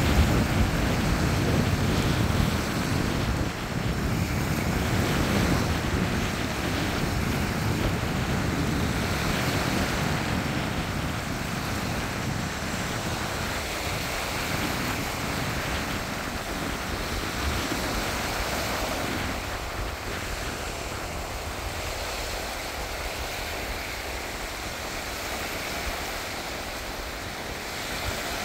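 Small surf breaking and washing up a sandy beach in a continuous wash, with wind buffeting the microphone. The low wind rumble eases off about two-thirds of the way through, leaving mostly the lapping waves.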